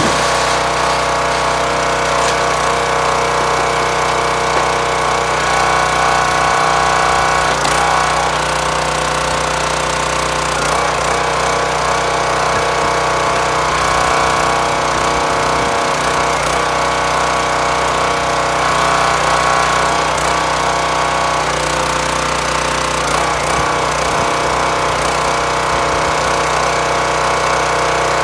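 Hydraulic log splitter's engine running steadily while the ram is worked to push ash rounds through a four-way wedge, its note changing a few times as the ram is cycled.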